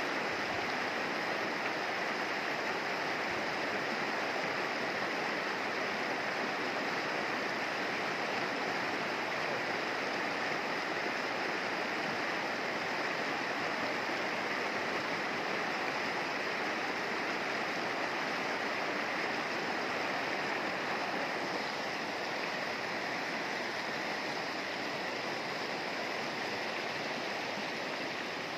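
Shallow, fast mountain river running over rocks and stones: a steady, unbroken wash of water noise.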